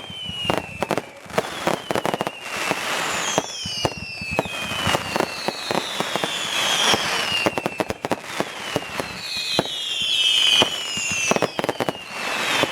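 Fireworks going off in quick succession: a rapid string of sharp bangs and crackles, with several shrill whistles falling in pitch over them.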